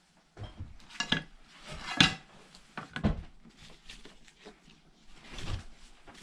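Hard objects knocking and clattering as they are handled or shifted, with three sharp clacks about a second apart and a longer scraping rustle a little before the end.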